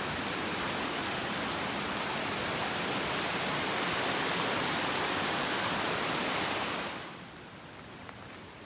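Rushing water of a cascading mountain creek running under a trail bridge, a steady hiss, which drops away sharply about seven seconds in.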